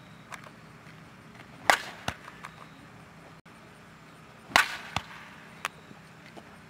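Softball bat striking pitched softballs twice, two sharp cracks about three seconds apart. Each is followed about half a second later by a lighter knock.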